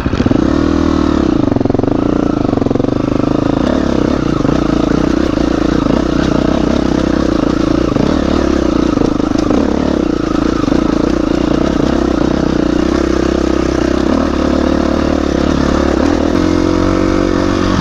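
Dirt bike engine running steadily, its pitch wavering a little as the throttle changes.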